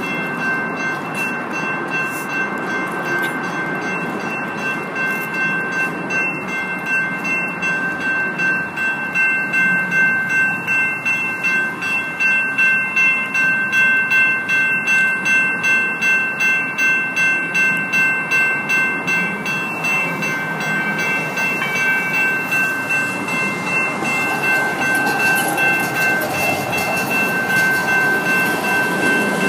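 Electronic railroad crossing bells (GS Type 2 e-bells) ringing in a fast, even, repeating rhythm of high metallic tones. Near the end a VTA light rail train rolls through the crossing under the bells.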